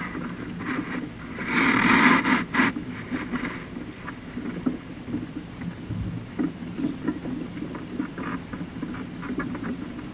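Ocean water sloshing and lapping, with one louder wash of a wave about a second and a half in.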